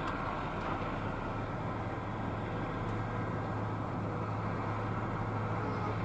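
New Holland CR 9040 combine running steadily under load while harvesting soybeans: an even machine drone with a constant low hum.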